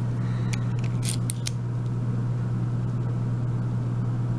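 A few light, sharp metallic clicks in the first second and a half as the Abus 34/55 padlock's brass cylinder, key and pins are handled during reassembly, over a steady low hum.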